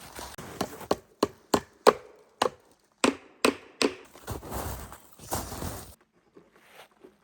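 Wood being chopped: about eight sharp chops over three seconds, followed by a couple of seconds of rustling.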